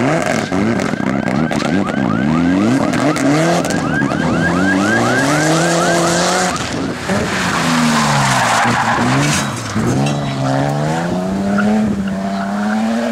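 Rally car engines revving hard, pitch climbing and dropping repeatedly through gear changes and lifts. About halfway through there is a burst of hissing tyre skid.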